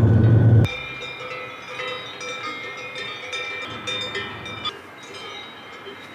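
Music cuts off sharply under a second in, then bells on grazing livestock clank and ring irregularly at several different pitches.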